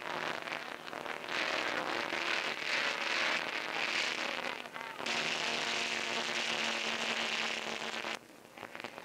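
Racing speedboat engines running flat out over a hissing, crackly old film soundtrack, a steady drone with a noisy roar above it. The sound jumps abruptly about five seconds in and drops away sharply just after eight seconds.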